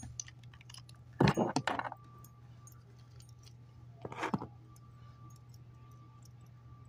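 Small plastic action figures clicking and clattering as they are handled and set up, in two short bursts about a second in and about four seconds in, with scattered light ticks between, over a steady low hum.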